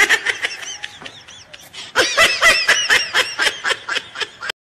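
Laughter: a fast run of high-pitched 'ha-ha' bursts, louder from about two seconds in, cutting off suddenly near the end.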